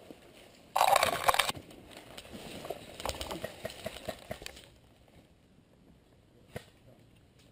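Footsteps crunching through dry fallen leaves and twigs on a forest floor, with a loud brushing rustle about a second in. The steps stop after about four and a half seconds, and it goes quiet apart from a single click near the end.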